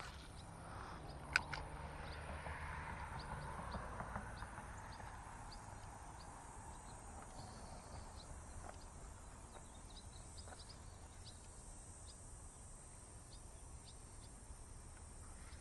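A spinning rod and reel being cast and worked: one sharp click about a second in, a faint hiss of line over the next few seconds, then faint, evenly spaced ticks as the reel is retrieved.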